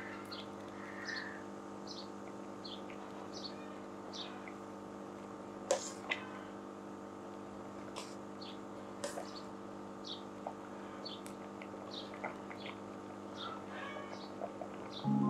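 Small birds chirping in short calls every second or so over a steady low hum, with a few sharp clinks of a metal ladle against the steel pot.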